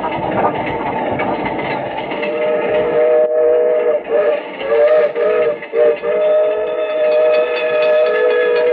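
Steam train sound effect from a 1940s radio drama: the train rumbles along, then its chime whistle sounds from about two seconds in, a long blast, a few short toots, then another long blast.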